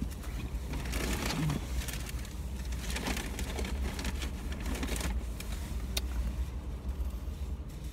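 Steady low rumble inside a parked car's cabin. Food packaging rustles in short bursts during the first five seconds, and there is one sharp click about six seconds in.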